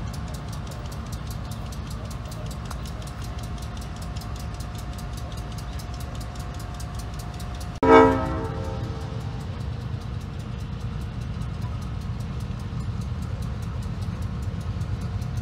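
GE B36-7 diesel locomotive's V16 engine running with a steady low rumble as it moves a loaded side dump car over a grade crossing. The crossing bell rings rapidly and evenly through the first half. About eight seconds in, the locomotive's horn gives one short, loud blast.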